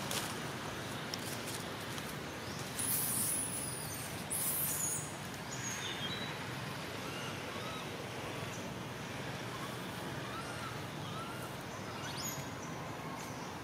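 Outdoor woodland ambience: a steady noisy background with faint bird chirps, broken by two short high-pitched hissing bursts about three and four and a half seconds in.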